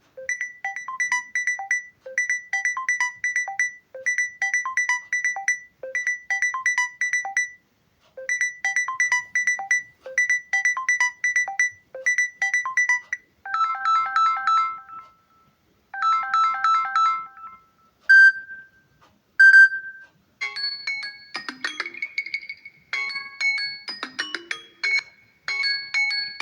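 Samsung Galaxy M32 ringtones played one after another. First a quick run of electronic notes repeats about every two seconds, then a lower repeating figure plays. Two single loud chimes follow, then a chiming bell-like melody.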